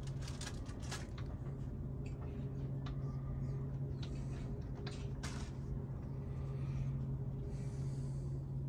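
Room tone with a steady low hum, broken by scattered light clicks and knocks.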